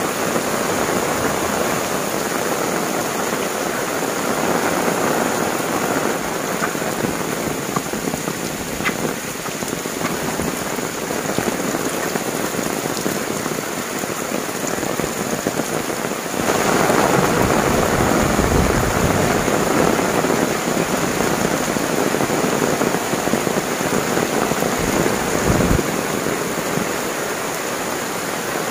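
Heavy rain pouring onto tiled roofs and banana and palm leaves, with water running off the eaves. About halfway through it grows louder and deeper, with low rumbles.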